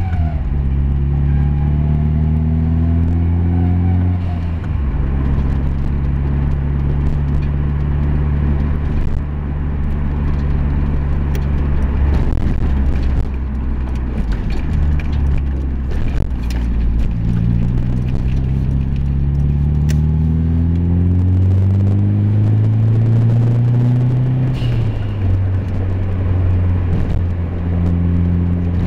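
Vehicle engine running while driving. Its pitch drops about four seconds in, climbs slowly through the second half and falls back again near the end, as with gear changes. This is a test drive to check for an abnormal noise.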